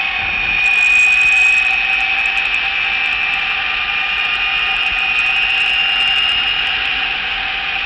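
Electric race car's drive motor, a 200-horsepower AC Propulsion unit, whining under full power at high speed (about 118 mph and 8,000 rpm), a high steady whine that climbs slowly in pitch and eases off near the end, over a rush of wind and road noise.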